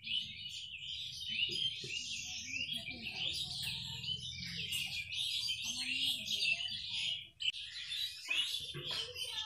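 Many small birds chirping and twittering together in a continuous dense chorus, which drops out briefly about three quarters of the way through.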